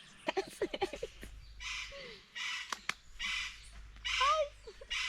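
Chickens clucking briefly, with small birds chirping. A regular rasping sound repeats five times, about once every 0.8 s.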